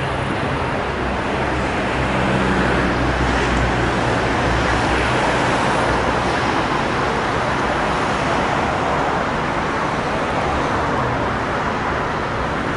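Steady motor vehicle noise: a low engine hum under a constant rush of road noise.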